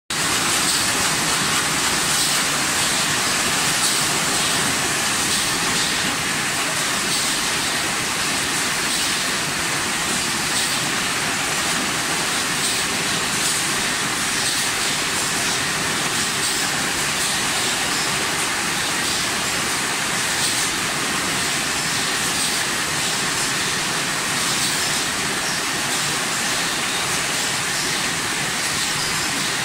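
Steady running noise of an automated carton-packing line: robot, conveyors and pneumatics with a constant hiss and faint repeated ticks.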